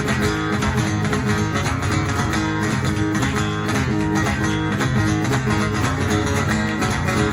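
Guitar playing a boogie intro with a steady strummed rhythm, no singing yet.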